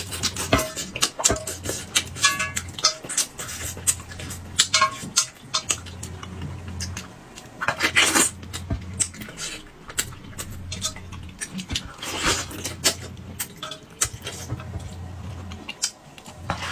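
Close-miked eating sounds: a man biting, sucking and chewing spicy braised fish straight off the fish held up on chopsticks, with many wet mouth clicks and smacks. A steady low hum runs underneath.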